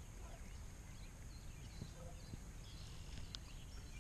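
Faint rural outdoor ambience: a low steady rumble with scattered faint bird chirps.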